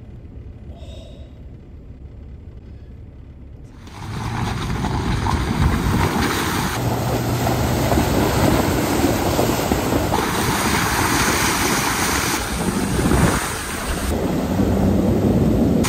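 Low vehicle rumble inside a truck cab, then, about four seconds in, a loud spray of water as trucks drive through a flooded road, with tyres throwing up floodwater; the sound shifts abruptly a few times between shots.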